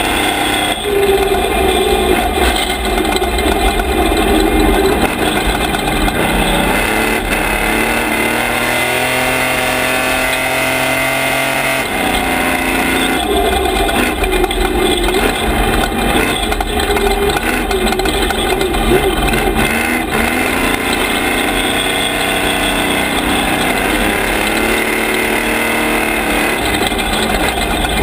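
Engine of a Toyota 1450-class off-road race truck running hard at speed on a dirt road, over steady tyre and wind noise. The revs drop back for several seconds around the middle and then climb again.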